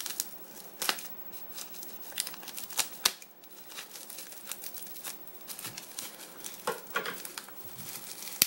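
Bubble wrap and brown packing tape crinkling and tearing as a small parcel is unwrapped by hand, in irregular crackles and sharp snaps.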